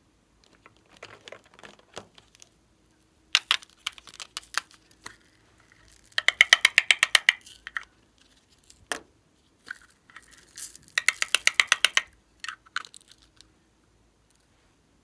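Thin clear plastic bear-shaped slime container being handled and opened. The plastic crackles and clicks, with two loud runs of rapid crackling, about six and eleven seconds in.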